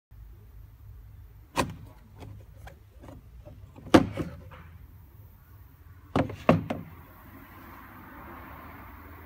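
Sharp clicks and knocks of plastic parts being handled on a BMW 520d air filter housing: one, then a pair about two seconds later, then three in quick succession, over a low hum.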